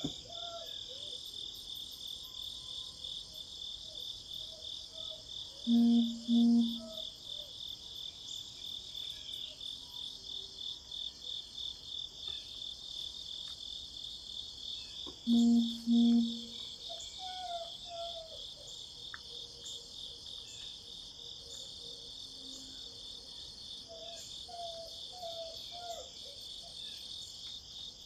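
Insects trilling in a steady, fast-pulsing chorus, with faint bird chirps. Twice, about 6 and 15 seconds in, a louder low two-note hum stands out.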